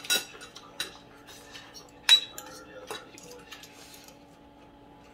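Forks and spoons clinking against plates and bowls during a meal: a few scattered clinks, the loudest about two seconds in, with a short ring.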